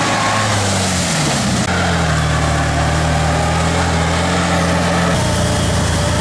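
LuAZ-969 off-roader's engine under load in mud, revving up and back down, then holding a steady high note. The engine sound changes abruptly twice.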